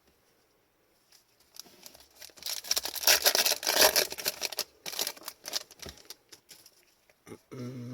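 Foil wrapper of a hockey card pack torn open and crinkled, with cards sliding and tapping. The loud crackling starts about two and a half seconds in and lasts about two seconds, followed by scattered light clicks.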